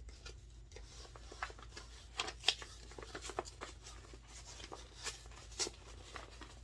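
A padded paper mailer envelope being torn open and handled: irregular crackling and rustling of paper, with a few sharper tearing sounds about two seconds in and again near five and a half seconds.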